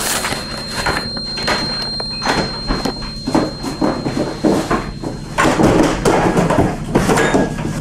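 A door being forced against a cardboard box barricade: repeated knocks, thuds and rattling of the door and box, getting louder and busier in the last couple of seconds.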